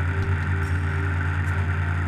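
Steady machine hum with a constant hiss above it, unchanging, with a few faint ticks.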